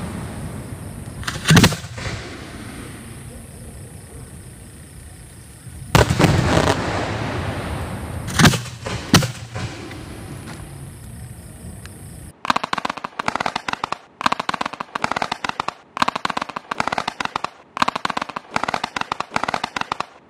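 Aerial fireworks going off: single shell bursts bang about a second and a half in, at about six seconds and twice more near nine seconds, each trailing off in a fading rumble. From about twelve seconds a rapid string of sharp pops and bangs runs on.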